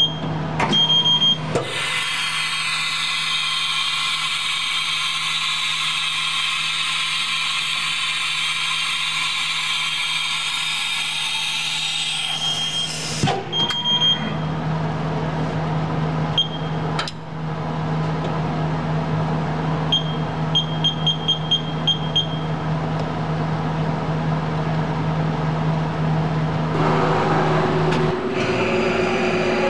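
Haas TM-1 CNC mill running under power: the spindle runs for about ten seconds with a steady whine of several high tones, then stops abruptly. Short high beeps from the Haas control come at the start, once in the middle and as a quick run of about seven, over a steady machine hum. Near the end a different steady running sound with a low tone comes in.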